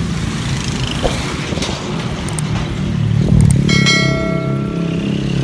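Motorcycle and motorcycle-sidecar tricycle engines running as they pass on the road, loudest about three seconds in. Near the end a short bell-like chime rings for about a second.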